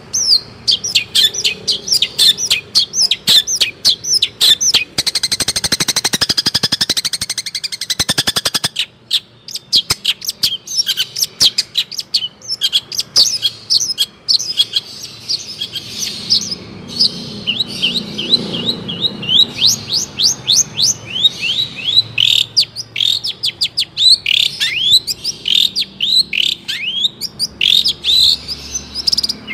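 Long-tailed shrike (cendet) singing a rapid series of sharp, downward-sliding whistled notes. About five seconds in, a fast, harsh rattle lasts roughly three seconds.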